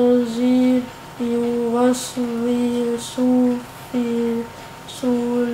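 A child's voice chanting Quran recitation in Arabic, held on a nearly level pitch in short phrases of under a second each, with brief pauses between them.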